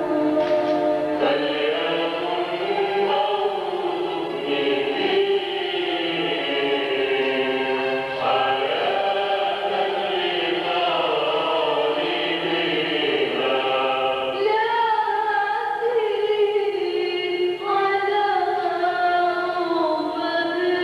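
Choral singing of a slow Arabic church hymn, with long held, chant-like notes and new phrases entering every few seconds.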